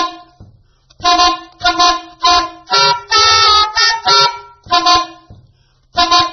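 Soprano saxophone blowing short, loud, separate blasts of multiphonics, several tones sounding at once. About three seconds in, one blast is held longer.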